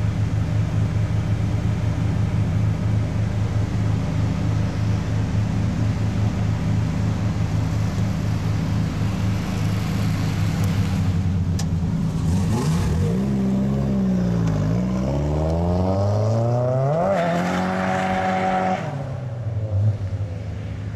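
BMW 325 straight-six engine in an M3 DTM replica, running steadily with a lumpy, pulsing note, then revved up and down about twelve seconds in. It climbs to a high rev that is held briefly, then drops back to a lower, quieter idle near the end.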